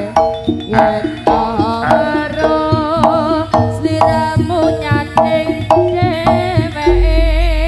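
Live jaranan gamelan music: kendang hand-drum strokes a little under two a second under a wavering, vibrato-laden melody line, with a deep low stroke swelling about seven seconds in.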